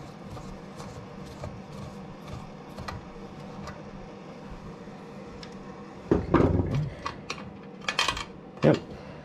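Light metal clicks of a screwdriver turning screws out of a rotary tumbler's metal end plate, then a louder clatter of tools on the wooden workbench about six seconds in, followed by two sharp clicks.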